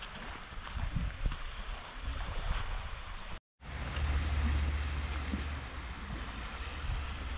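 Wind rumbling on the microphone over a steady hiss of rain and small waves on a lakeshore. The sound drops out for a moment about three and a half seconds in, and the wind rumble is stronger after.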